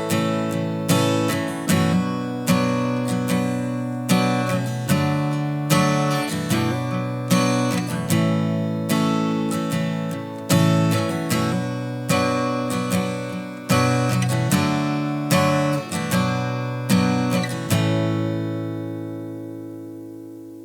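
Background music: acoustic guitar playing a steady run of strummed and plucked chords, the last chord ringing out and fading away near the end.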